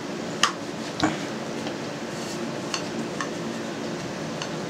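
Wooden rolling pin rolling out yeast dough on a floured board: a steady dull rubbing, with two sharp knocks in the first second as the dough and pin are handled, and a few light ticks after.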